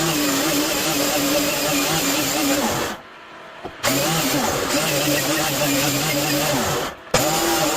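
Power tool motor running, winding down twice with falling pitch and starting again abruptly each time.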